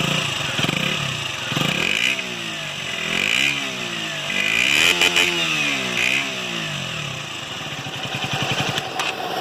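KTM RC 125's single-cylinder four-stroke engine being revved in neutral, its pitch rising and falling again and again as the throttle is blipped.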